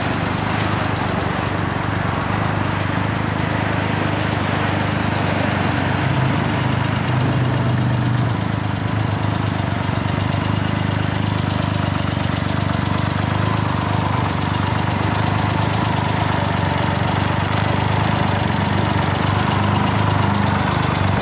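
Can-Am Ryker Rally 900's Rotax 900 ACE three-cylinder engine idling steadily through its stock exhaust.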